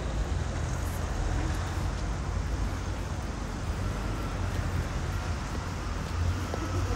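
Street ambience with a steady hum of passing road traffic.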